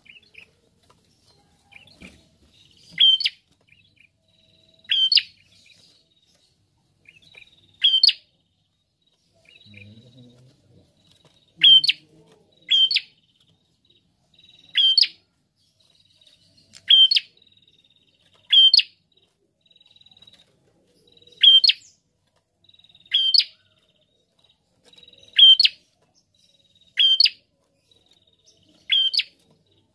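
Caged tailorbird calling: a loud, sharp, short call note repeated about thirteen times, roughly one every two seconds, with softer short notes between.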